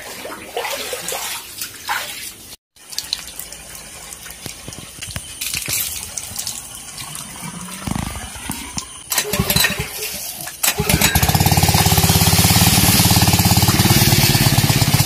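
Water sloshing and splashing, then a small petrol-engine water pump being pull-started. About eleven seconds in the engine catches and runs steadily at full speed, with water gushing from its outlet.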